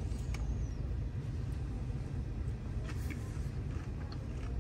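Street background noise: a steady low rumble, with a few faint clicks.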